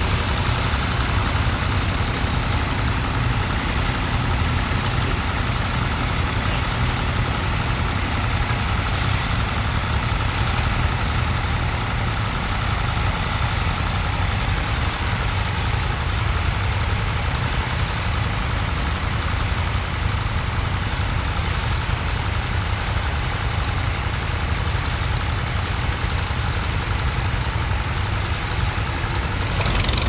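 Ferguson TE20 tractor engine running steadily under load as it pulls a mounted plough through the field, a low, even engine note throughout.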